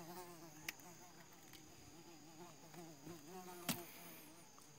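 A flying insect buzzing faintly close by, its pitch wavering up and down, over a thin steady high whine. A sharp tick sounds about three-quarters of the way through.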